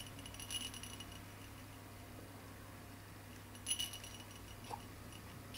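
Faint jingling of a small bell inside a soft fabric toy ball as it is batted by a baby's fist, once just after the start and again, a little louder, about four seconds in.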